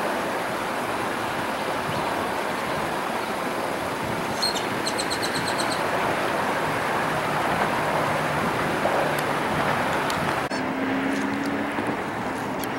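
Steady rushing outdoor noise of traffic and wind around a flooded highway underpass. About four and a half seconds in, a bird gives a quick run of high chirps. About ten and a half seconds in, the sound cuts to a quieter background with a low steady tone.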